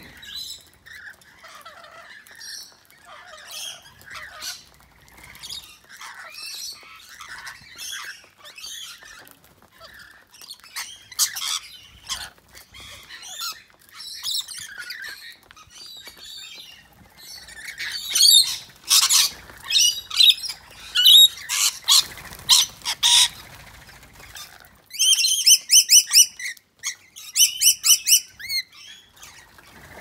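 A feeding flock of rainbow and scaly-breasted lorikeets chattering and screeching without pause, the screeches growing louder and harsher in the second half, with a quick run of repeated shrill calls near the end.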